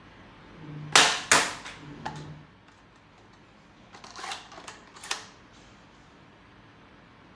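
A 3D-printed foam dart blaster, powered by a stretched elastic cord, firing: two sharp cracks a third of a second apart about a second in. Between about four and five seconds in comes a quieter run of plastic clicks and clacks, typical of the blaster being primed again.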